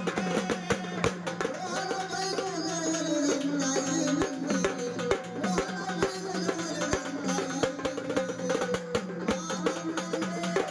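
Folk music ensemble playing: a gliding melody line over quick, steady hand-drum strokes.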